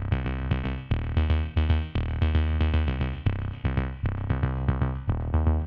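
Background music with a steady beat, quick repeated pitched notes and a deep bass line.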